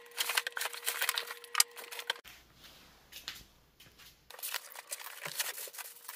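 Short clicks, taps and rustling of flat-pack furniture parts and packaging being handled, broken by a quieter stretch with a low hum in the middle.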